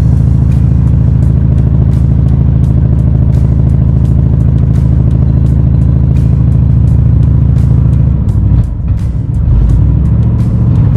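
1969 Ford Galaxie 500's 390 V8 running steadily, its sound changing abruptly about eight seconds in.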